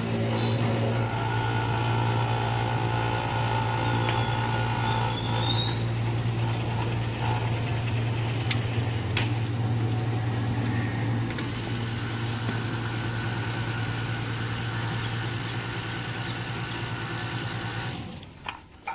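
Petrol pump dispenser motor humming steadily while fuel runs through the nozzle into a motorcycle's tank, with a few light clicks. It stops suddenly near the end.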